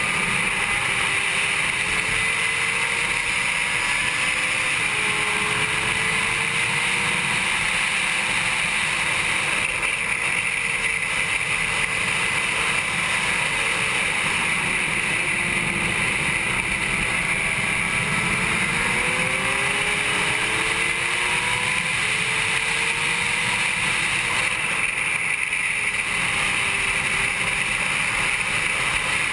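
Honda CBR600RR inline-four engine running hard under racing throttle, its pitch rising and falling as the rider accelerates and shifts, over a constant rush of wind, heard from a camera mounted on the bike.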